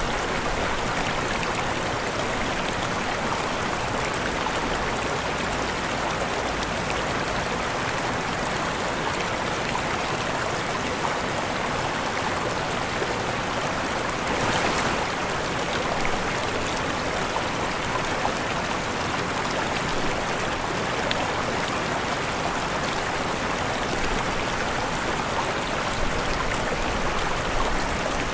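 Waterfall: a steady, even rush of falling water, with a slight swell about halfway through.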